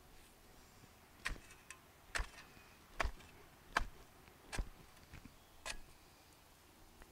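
Narrow garden spade chopped down into the soil six times, a sharp strike about every second.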